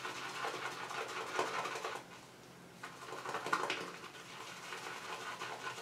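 Badger shaving brush whisking soap into a lather in a mug: a faint, rapid, wet swishing and crackling in two spells, with a short pause about two seconds in.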